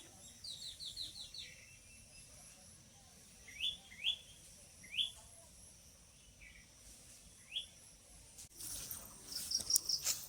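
Birds calling over a steady high insect buzz: a quick run of about six falling notes near the start, then single rising chirps every second or so. In the last couple of seconds it turns louder and busier, with rapid chirps mixed with clicks and rustling.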